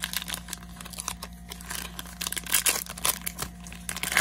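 Foil Pokémon booster-pack wrapper crinkling and trading cards being handled, a run of irregular crackles and rustles.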